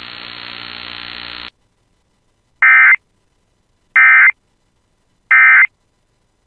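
Emergency Alert System end-of-message code: three short digital data bursts, each about a third of a second long and spaced about 1.3 seconds apart, marking the end of the alert. Before them, a steady hiss with a faint hum cuts off about a second and a half in.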